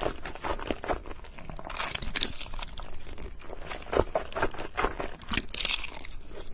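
Close-miked eating sounds of a person slurping and chewing sauced noodles, with wet mouth smacks and clicks.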